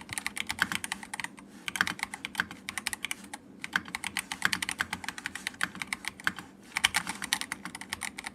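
Fast typing on a Redragon Elf Pro gasket-mounted 75% mechanical keyboard with tactile brown switches: quick runs of key clacks, broken by three short pauses.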